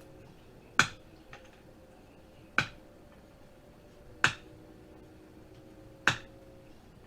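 Cutters snipping the blades off a computer cooling fan one at a time: four sharp snaps, a little under two seconds apart.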